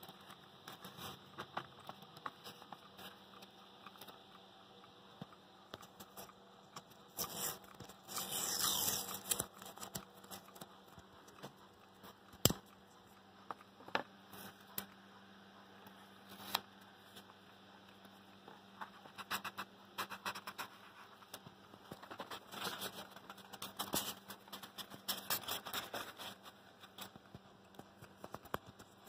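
Rustling, scraping and scattered clicks from handling crinkly foil-faced bubble insulation, with a louder rustle about eight seconds in and more irregular rustling in the last third. A faint steady low hum runs underneath.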